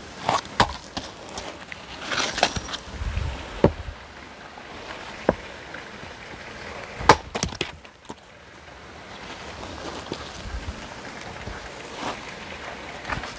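Hatchet striking and splitting firewood: a series of sharp knocks at uneven intervals, the loudest about seven seconds in.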